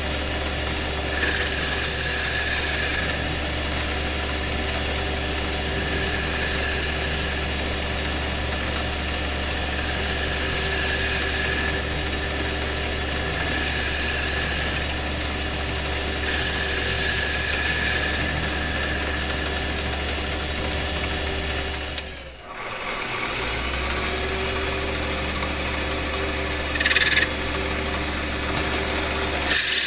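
A workshop machine's electric motor running steadily with a hum. A higher hiss comes and goes several times, and the sound dips briefly about two-thirds of the way through before picking up again.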